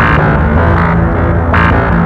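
Background music: a steady bass line under a synth figure that repeats about every second and a half.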